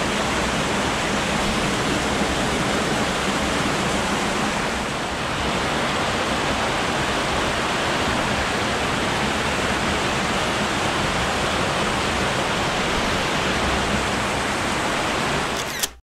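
Steady rushing of a small mountain stream cascading over rocks into a pool. It cuts off abruptly near the end.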